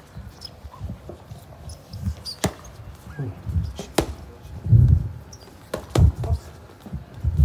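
Boxing footwork and pad work: feet shuffling and thudding on the hard court, with a few crisp smacks of gloved punches landing, two of them about two and a half and four seconds in.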